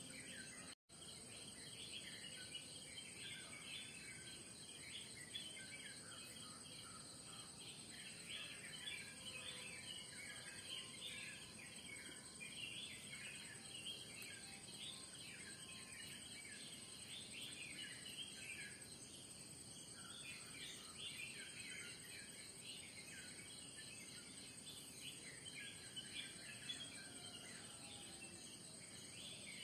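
Morning chorus of many small birds chirping busily over a steady, high-pitched insect drone. The sound cuts out completely for a split second about a second in.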